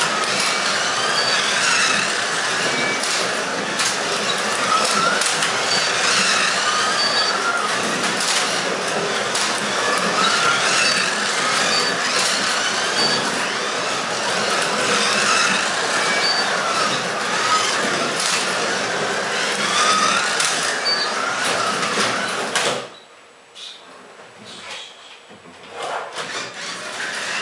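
Carrera Digital 1/24 slot cars running on a plastic track: electric motors whining and rising and falling in pitch as they speed up and slow down, over a steady rattle from the cars and track, with short electronic beeps now and then. About 23 s in the racing noise stops suddenly, leaving a few quiet knocks.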